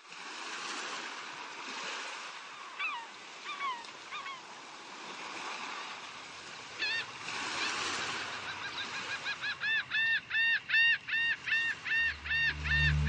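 Sea surf washing with gulls calling over it: a few scattered cries, then a fast run of repeated calls, about four a second, through the second half. Low music notes come in near the end.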